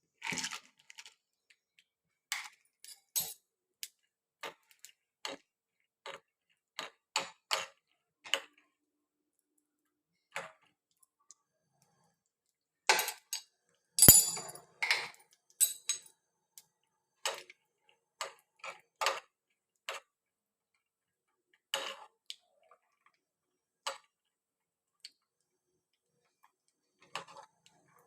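Irregular clicks and taps of metal kitchen utensils, spaced a second or so apart. A louder cluster of clinks with a short metallic ring comes about halfway through.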